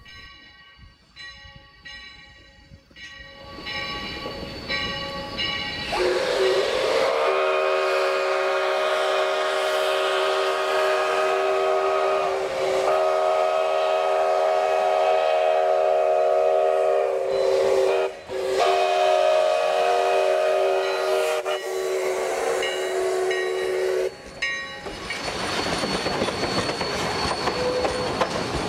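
Sierra Railway No. 3, a 4-6-0 ten-wheeler steam locomotive, blows its chime whistle, several notes at once, in four blasts: two long, then two shorter. This is the warning for a road crossing it is approaching. A bell rings faintly at first, and near the end the engine passes close with hissing steam and wheels clattering on the rails.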